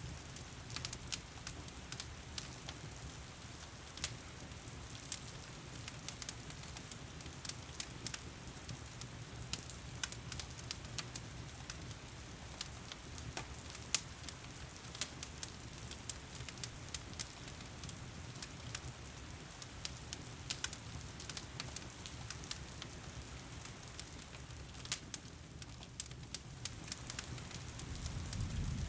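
Wood fire crackling with frequent sharp pops, over a steady hiss of rain; a low rumble swells slightly near the end.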